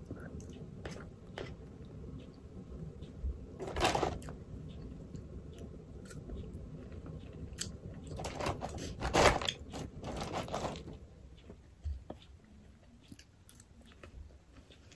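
Close-up chewing and mouth sounds of someone eating pork ribs, with a black plastic knife and fork clicking and scraping against a plastic takeout tray. There are a few louder spells, about four seconds in and again from about eight to eleven seconds.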